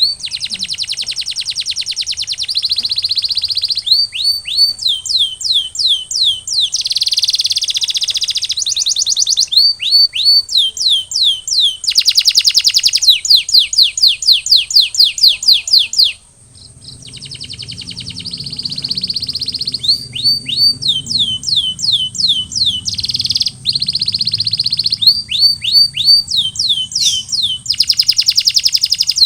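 Domestic canary singing: fast trills alternating with series of repeated downward-swept notes, with a short break about sixteen seconds in.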